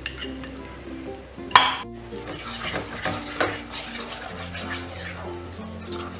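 Wooden spoon stirring ketchup and spices around a frying pan, scraping the pan over a light sizzle, with one sharp clink about one and a half seconds in. Soft background music underneath.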